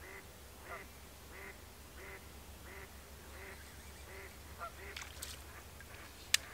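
An animal calling in a steady series of short calls, about one and a half a second. A single sharp click near the end is louder than the calls.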